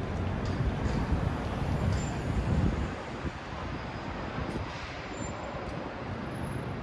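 City traffic ambience: a low rumble of passing vehicles, heaviest for the first three seconds, then easing to a steadier, quieter hum.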